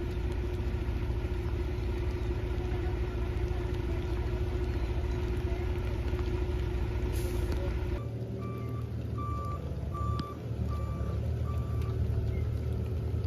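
A heavy vehicle's engine running steadily with a low rumble and a held hum. Partway through the sound changes abruptly, and a reversing alarm beeps five times, about three-quarters of a second apart, over the continuing engine.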